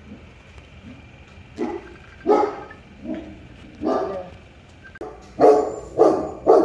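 A dog barking repeatedly, about eight short barks, the last three the loudest and closest together.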